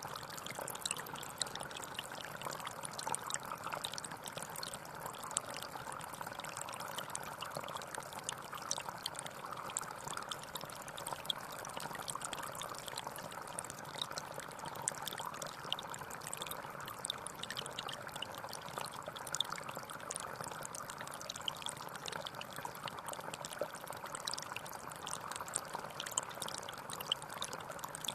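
Water trickling and pouring steadily, with a constant fine splashing and bubbling patter.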